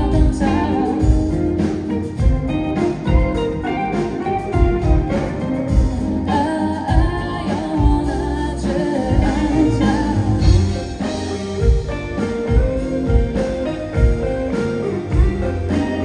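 Live band music: a woman singing over electric guitar and a drum kit keeping a steady beat.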